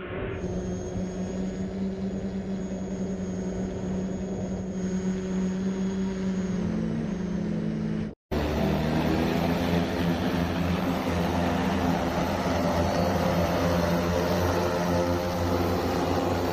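Simulated multirotor drone propeller noise: a steady humming tone passing over, then a cut with a moment of silence about eight seconds in. After the cut the drone hum returns louder and noisier as a drone takes off close by.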